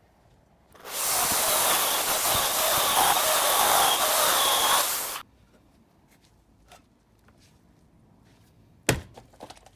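Chainsaw making one straight cut down through the middle of a log for about four seconds, starting quickly and stopping abruptly. A single sharp knock follows near the end.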